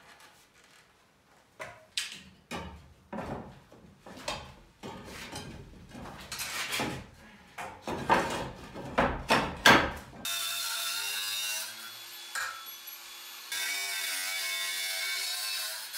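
Old wooden ceiling boards being pried loose with a crowbar: irregular knocks and clatters of wood that grow louder and more frequent.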